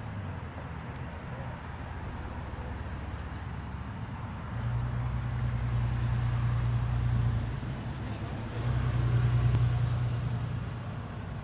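Low, steady engine hum of a motor vehicle, swelling louder twice, about four and a half seconds in and again near nine seconds.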